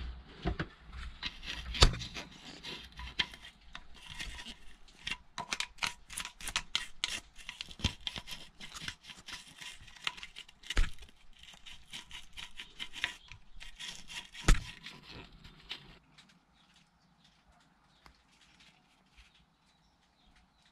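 A toothbrush scrubbing the inside of a marine diesel's raw-water pump housing, with the impeller out: fast, scratchy, irregular brushing with a few sharper knocks, stopping near the end.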